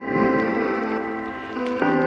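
Background music: sustained chords, changing to a new chord near the end.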